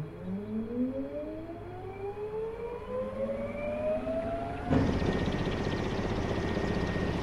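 CityAirbus eVTOL demonstrator's electric motors and ducted propellers spinning up with a rising whine. About two-thirds of the way in, the sound jumps suddenly to a loud, steady rush of propeller noise with a high tone over it, as the rotors reach high thrust.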